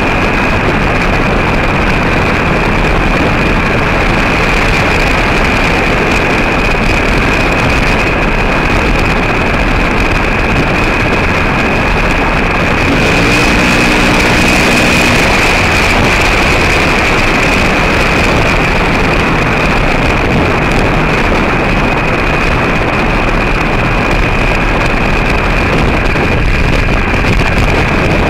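A vehicle driving steadily on a gravel road: constant engine and tyre noise with wind, and a steady high whine running through it. A brief faint tone sounds about halfway through.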